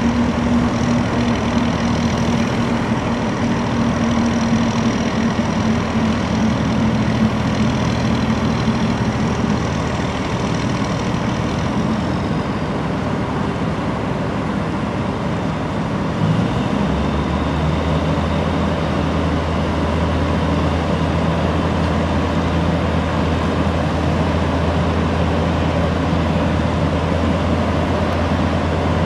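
A 120-ton Grove mobile crane's diesel engine runs steadily while it holds a steel roof section. About sixteen seconds in its note shifts to a lower, steadier tone. A faint high whine fades out about twelve seconds in.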